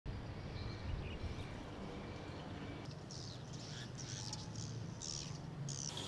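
Swiftlets calling in a flock, high twittering chirps that grow into a dense flurry about halfway through, over a steady low rumble.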